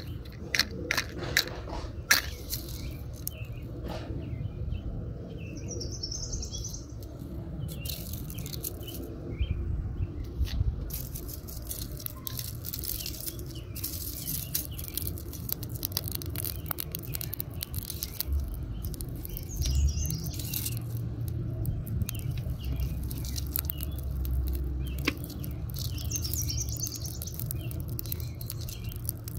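A match struck on its box near the start, then the irregular crackle and rustle of dry husks and twigs catching alight in a small kindling fire. Birds chirp now and then in the background.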